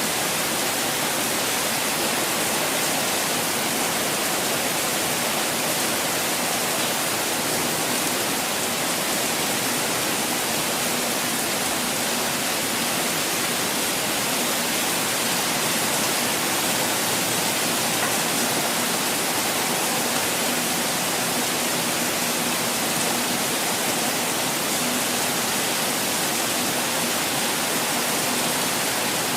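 Constantly falling water making a steady, unbroken rush with a hissy, bright character.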